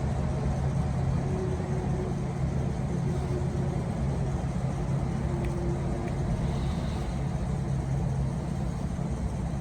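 Universal EM999 refrigerator evaporator fan motor running with its blade fitted, a steady low hum throughout. It is on a test run to check rotation and is turning the wrong way, so its rotation will have to be reversed.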